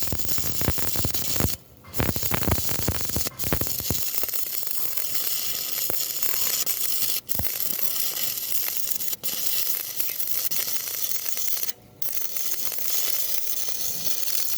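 Stick (arc) welding arc crackling and hissing steadily as a bead is laid. It is rougher in the first few seconds and drops out abruptly for a moment several times.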